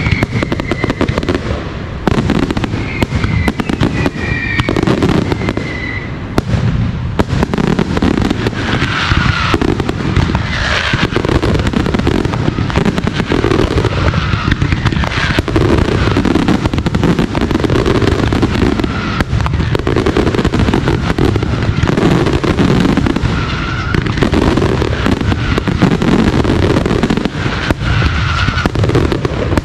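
Aerial fireworks display: a dense, continuous barrage of bangs and crackling from bursting shells, with a few short whistles in the first six seconds.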